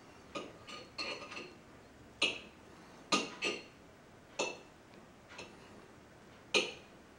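A baby chewing a piece of waffle with his mouth open, making about nine short wet smacks and clicks at irregular intervals. The loudest comes near the end.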